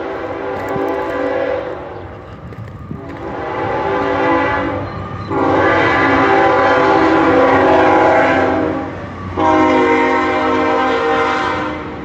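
CSX freight locomotive's multi-chime air horn sounding four long blasts for the road crossing, the last two the loudest, over a steady low rumble.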